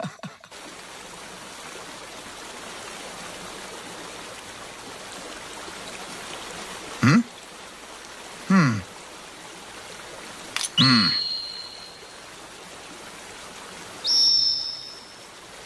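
Cartoon soundtrack with a steady hiss-like background. Three short low sounds fall in pitch, about 7, 8.5 and 11 seconds in. A bright ringing chime follows near 11 seconds, and a high shimmering gleam sound effect comes near the end as a spinning top is shown.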